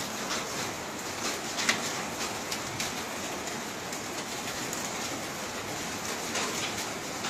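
Steady hiss of rain with scattered drops tapping. The rain is laden with volcanic ash and falls as mud.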